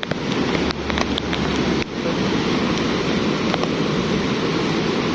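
Lahar flood from Mount Semeru rushing steadily through a rocky river gorge: a torrent of muddy water carrying sand and large rocks.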